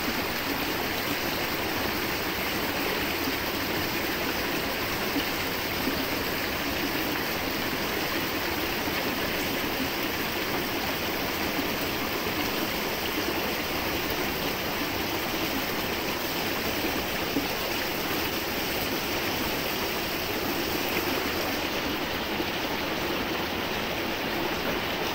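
Stream water rushing steadily, an even unbroken flow.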